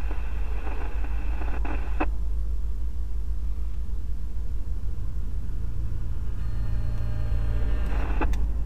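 Low rumble of an approaching diesel freight locomotive, with a steady engine hum coming up from about five seconds in. A burst of scanner-radio static at the start cuts off abruptly about two seconds in.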